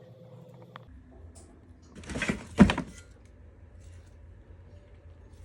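A short clatter of handling sounds with one sharp knock, about two seconds in, against a faint steady hum.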